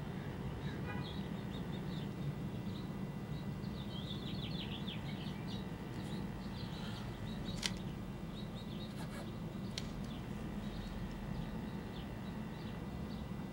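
Faint bird chirps over a steady low hum, with two sharp clicks in the second half.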